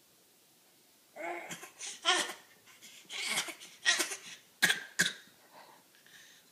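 A fit of coughing: about eight coughs, some with a laugh-like voiced catch, starting about a second in. It ends with two short, sharp coughs in quick succession.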